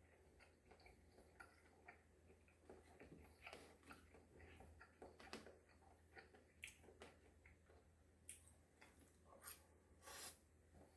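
Faint eating and handling sounds: scattered soft clicks and taps at irregular intervals over a low steady hum.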